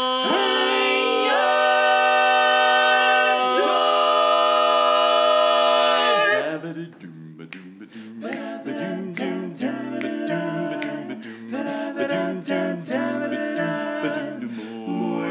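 Male barbershop quartet singing a cappella in close four-part harmony. A held chord shifts twice, then about six seconds in the singing turns softer and quicker, with short rhythmic notes.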